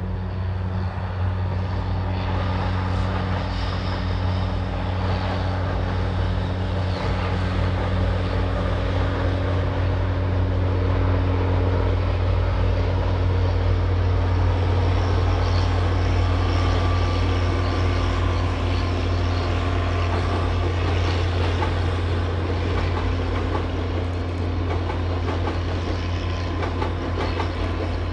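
Diesel-hauled commuter train crossing a steel trestle viaduct: a steady low locomotive engine drone under a dense rumble and rattle of wheels and coaches on the rails, growing a little louder toward the middle and easing slightly near the end.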